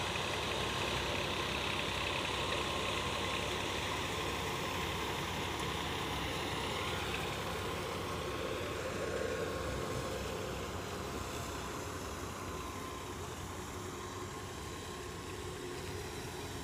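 Massey Ferguson 240 tractor's three-cylinder diesel engine running steadily under load, powering a belt-driven thresher that is being fed sesame stalks; engine and threshing machine sound together as one continuous mechanical din.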